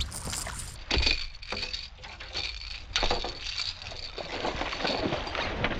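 Irregular clattering knocks and scraping in a bass boat while a big bass is fought at the boat and comes off, with sharp hits about a second in and again around three seconds.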